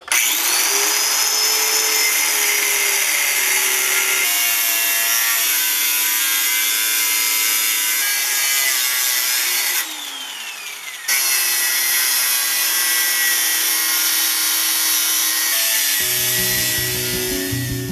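Angle grinder with a thin cutting wheel cutting into a copper-wound electric motor stator. It starts abruptly with a rising whine, runs steadily under load, is let off about ten seconds in and winds down with a falling whine, then is started again a second later. Acoustic guitar music comes in near the end.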